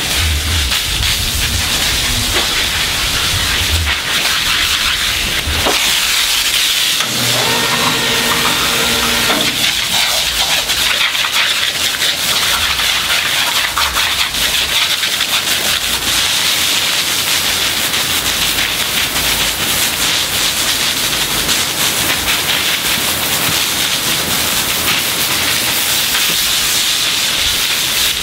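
Steady hiss of a water jet from a spray wand, spraying and splashing against a hanging wild hog carcass's bristly hide and onto concrete. About a quarter of the way through, a pitched sound rises over the hiss for about three seconds.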